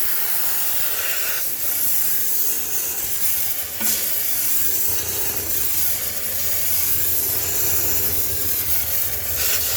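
High-pressure steam cleaner jetting steam with a steady hiss while sterilizing a sneaker washing machine, with a brief click about four seconds in.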